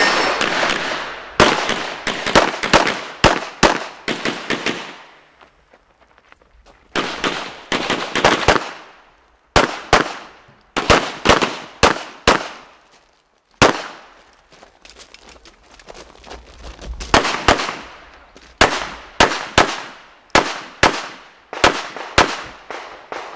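Rapid 9mm pistol fire from a Smith & Wesson M&P9 Pro: strings of quick shots, often in pairs, each with an echo. The strings are broken by short pauses while the shooter moves between shooting positions.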